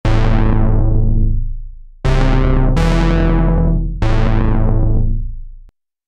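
SynthMaster 3 software synthesizer playing a bass preset: three deep held bass notes about two seconds apart, each starting bright and growing duller. There is an extra bright stab partway through the second note, and the sound stops suddenly near the end.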